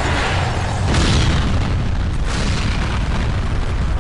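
Test detonation of an explosive charge inside an airliner fuselage: a heavy blast noise with a deep rumble, swelling about a second in.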